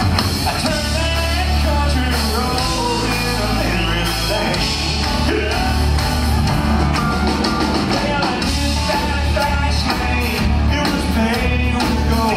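Live band playing an up-tempo number with a steady beat, a man singing lead over it.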